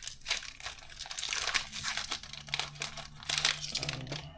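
Foil Pokémon TCG booster pack wrapper crinkling and crackling as it is ripped open by hand.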